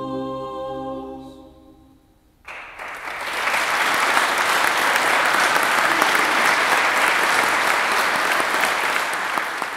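A choir holds its final chord, which dies away over the first two seconds. About two and a half seconds in, an audience breaks into applause that stays steady and loud.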